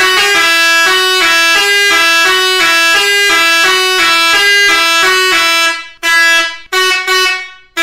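Seger 86EE 24-volt musical air horn playing a quick melody of short stepping notes. A little before six seconds in, the tune breaks off into three separate blasts with short gaps between them.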